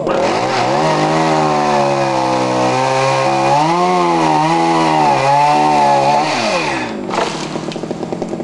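Two-stroke chainsaw revved up sharply and held at high speed for about six seconds, its pitch wavering as it cuts into the larch, then winding down; a short second blip of throttle follows.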